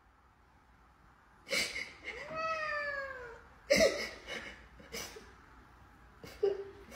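Domestic cat meowing: one long meow about two seconds in that slides down in pitch, followed by a few shorter calls.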